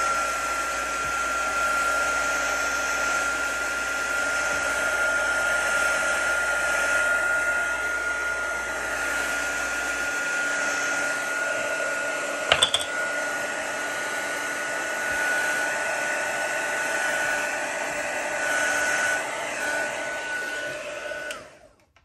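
Handheld craft heat tool running steadily, a rush of hot air with a high whine, drying wet ink on kraft cardstock. There is a single click about halfway, and the tool is switched off just before the end.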